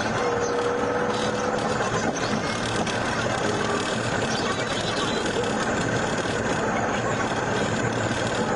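Steady road and engine noise inside a car cruising at highway speed.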